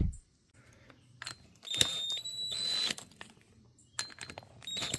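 Metal tools and parts clicking and rattling during hand work on a lawnmower transmission, with a short high-pitched whine about two seconds in and another burst of clicks near the end.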